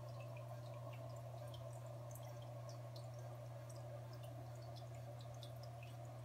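Aquarium filter running: a steady low hum under the trickle of water, with many small scattered drips and pops.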